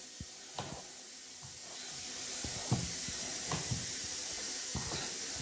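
Hands rubbing and breaking up freshly steamed couscous grains in a bowl, between one steaming and the next: a soft grainy rustle with a few light scattered taps, growing louder after about two seconds.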